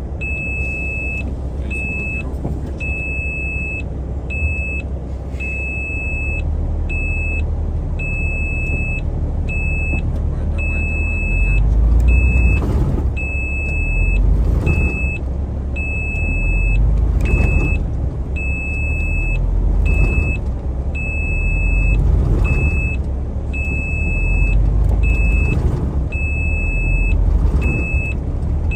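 Heavy truck's diesel engine rumbling, heard from inside the cab, swelling and easing in waves about every two to three seconds from about a third of the way in. A high electronic beep repeats in short pulses throughout.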